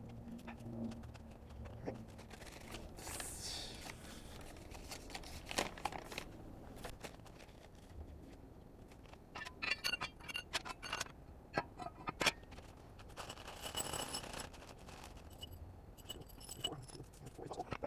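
Small metal parts being handled: scattered clicks, knocks and scrapes, with two spells of jingling about ten and fourteen seconds in.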